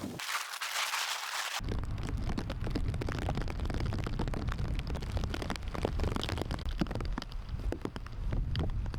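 Heavy rain falling, a dense patter of drops over a low rumble. A brief steady hiss at the start cuts off suddenly about one and a half seconds in.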